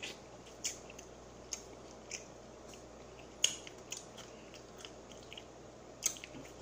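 Chewing a fried chicken drumstick: scattered soft, sharp mouth clicks and smacks about every second, the loudest about three and a half seconds in and another near the end.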